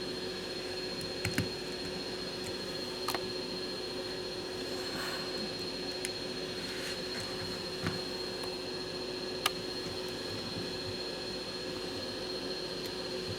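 Steady machine hum with a constant low tone and a high whine, broken by a few light clicks and taps.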